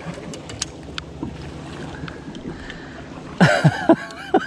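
Steady boat and wind noise with a few small sharp clicks, then, about three and a half seconds in, a short run of loud voice bursts from a man.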